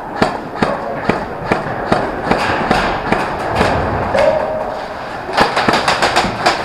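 Airsoft guns firing during a game: scattered sharp snaps and knocks, several a second and irregular.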